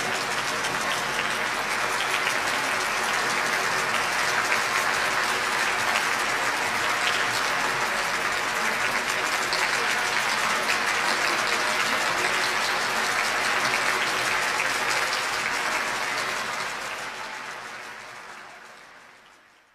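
Concert audience applauding steadily after a performance, the clapping fading out over the last few seconds.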